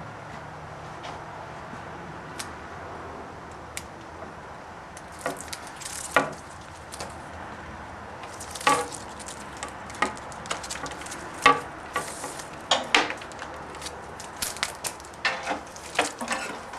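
Irregular scraping, rustling and clicking of a 10-gauge copper wire being pulled through a wire stripper while a utility-knife blade slits its insulation. The clicks come thicker from about five seconds in.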